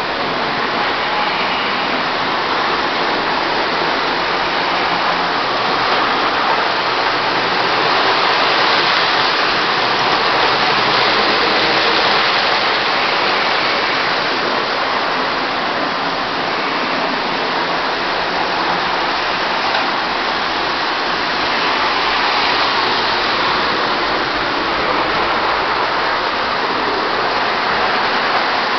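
Lionel O-gauge electric toy trains running on three-rail track: a steady rumbling whir and rattle of motors and wheels on metal rails, swelling a little midway.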